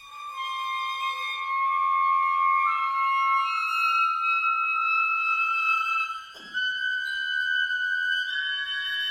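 Contemporary chamber quintet (flute, clarinet, piano, violin, cello) playing high, held, overlapping notes that step upward in pitch. A brief break with a short downward slide comes about six seconds in.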